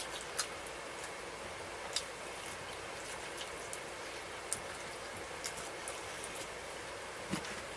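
Someone chewing a chicken wing: faint wet mouth clicks and smacks every second or two over a steady hiss.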